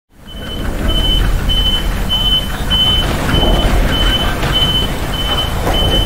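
A truck's reversing alarm beeping in a single high tone, about ten short, evenly spaced beeps at roughly one and a half a second, over a low rumble.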